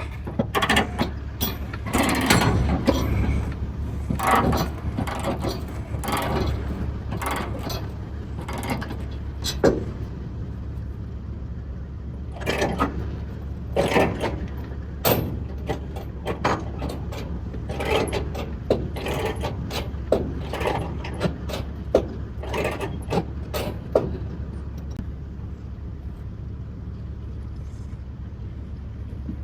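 Ratchet chain binders being cranked tight on load-securement chains: irregular clicking and clanking of the ratchets and chain links, in clusters, thinning out after about 24 seconds, over a steady low hum.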